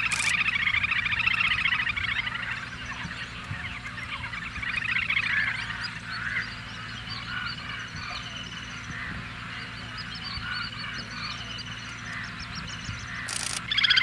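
Little grebe giving its rapid whinnying trill, wavering up and down in pitch, loudest in the first few seconds and fading about six seconds in. Fainter short calls follow, and the loud trill starts again at the very end.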